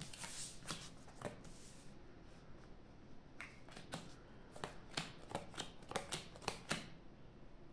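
Playing cards being dealt one at a time onto a table: a series of faint, sharp card snaps and slaps, a few at first and then a quick run of them in the second half.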